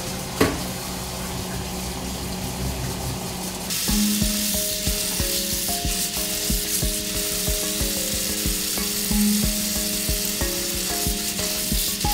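Water from a kitchen tap running in a steady hiss onto soybean sprouts in a metal mesh strainer, starting about four seconds in. Background music with a steady beat plays throughout.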